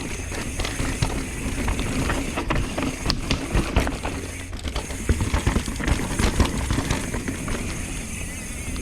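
Mountain bike descending a dirt trail: tyres rolling over rough ground under a steady low rumble of wind on the helmet camera's microphone, with many sharp clicks and knocks as the bike rattles over the bumps.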